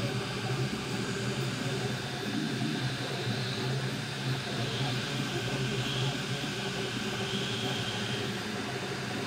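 Prusa i3 3D printer running mid-print: a steady whir from its fans, with its cooling fan at full speed.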